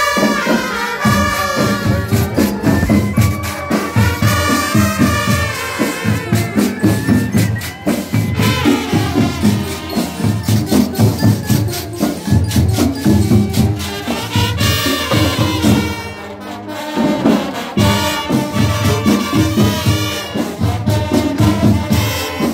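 School marching band playing a lively Latin-style tune: brass and woodwinds carry the melody over a steady beat of drums and metal percussion.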